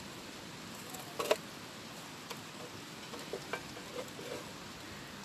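Knife working garlic cloves on a cutting board: two sharp knocks about a second in, then a few light taps, over a steady hiss.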